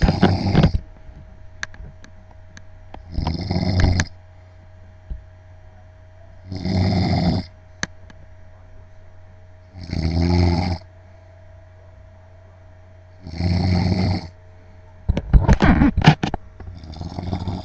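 A sleeping man snoring: about six snores, each roughly a second long and spaced three to four seconds apart, with louder, rougher snores near the end. A faint steady hum runs underneath.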